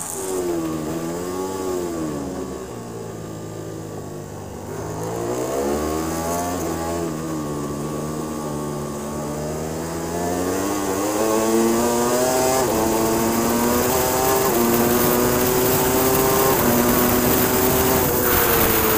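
Racing superbike engines heard from onboard cameras over steady wind rush. First a Yamaha R1's inline-four, its revs dipping and rising again through a corner; then, after a cut about five seconds in, a Ducati Panigale V4 R's V4 under acceleration, its revs climbing and louder in the second half.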